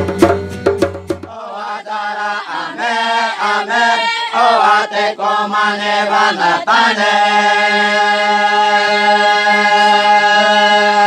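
Acoustic guitars and a hand drum cut off about a second in, giving way to ceremonial chanting voices at a night ayahuasca (uni) ceremony. The chant's pitch moves at first, then settles into one long steady note over a low drone.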